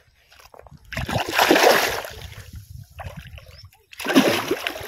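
Water splashing in two loud bursts, about a second in and again near the end: a hooked fish thrashing at the surface as it is hauled in on a gang-hook line.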